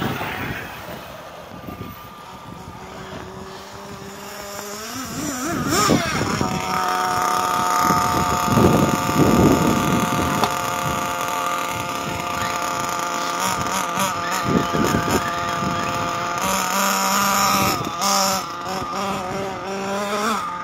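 Radio-controlled model buggies driving on a snowy track, their motors running with a high steady whine that rises in pitch as they speed up.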